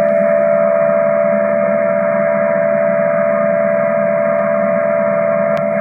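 Emergency Alert System attention tone broadcast over TV: one loud, steady electronic tone with a buzzy hum beneath, unbroken, announcing an emergency alert (an Amber Alert).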